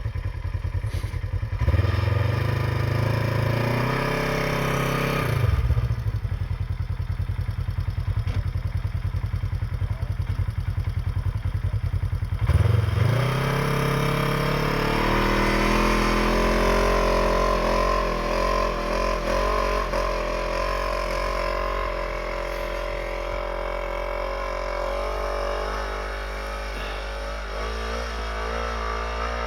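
Snowmobile engine idling, then revved up sharply several times before it settles into steady running. Near the end it becomes a little quieter.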